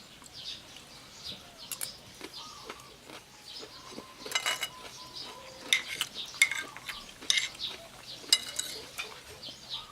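Metal cutlery clinking and scraping against a dish while someone eats: a string of separate clinks about a second apart, a few of them ringing briefly.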